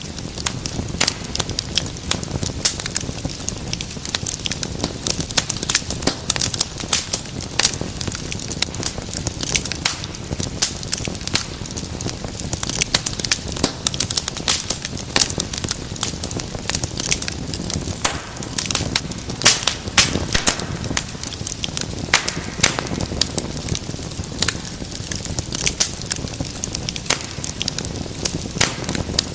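Wood fire burning in a fireplace: a steady low rush of flames with frequent sharp, irregular crackles and pops from the burning logs.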